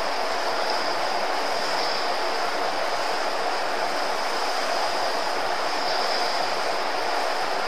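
A steady, even hiss that holds at one level throughout, with no speech.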